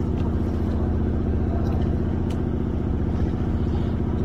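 A fishing boat's engine running steadily at a constant, low, fast-pulsing drone.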